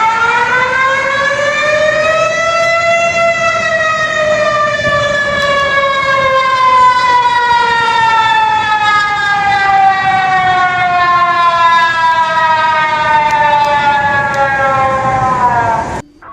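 Civil defense warning siren with a rich, multi-toned wail. It rises in pitch over the first three seconds, then winds slowly down for about twelve seconds, and is cut off abruptly near the end.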